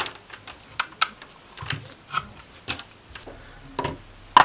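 Irregular clicks and taps from test leads and an aluminium-housed power resistor being handled on a desk, with one sharp click near the end the loudest.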